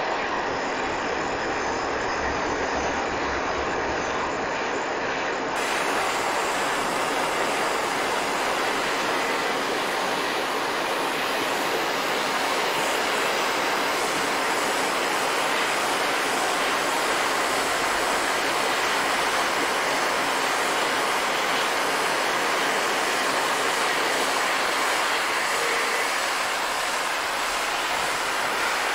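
Gas torch flame burning with a steady hiss while heating a steel BMX frame tube for silver soldering. It gets a little louder and brighter about five seconds in.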